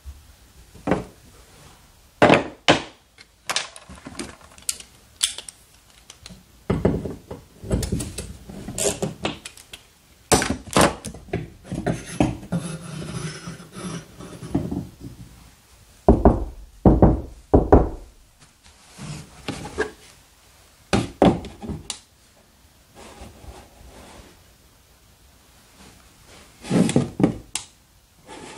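Metal floating-shelf bracket handled and set against a drywall: irregular knocks, clunks and rattles, with a longer stretch of scraping near the middle. The loudest knocks come in a cluster a little past the middle and again near the end.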